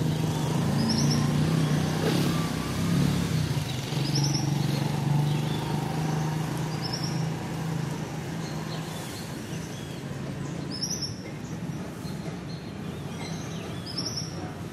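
Village morning ambience: a vehicle engine's steady hum, strongest at first, fades gradually away, while a bird repeats a short high chirp every few seconds.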